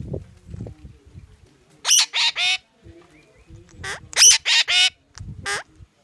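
Parakeet squawking loudly: a quick run of three harsh calls about two seconds in, a run of four about four seconds in, and one more near the end. Soft low knocks come in the first second or so.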